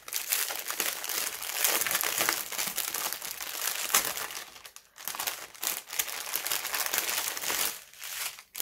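Clear plastic bags crinkling as they are handled and opened, a bundle of small packets of diamond-painting drills inside. Dense crackling that drops out briefly about five seconds in and again near the end.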